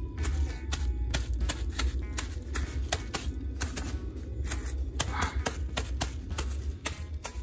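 Crumpled plastic bag dabbing gold paint onto a wall: irregular crinkly pats, a few a second, over a steady low hum.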